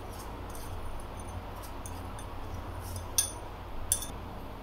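A steel spoon clinks lightly against a glass bowl and a steel pot as sugar is spooned into milk, with two sharper clinks about three and four seconds in. A low, steady hum runs underneath.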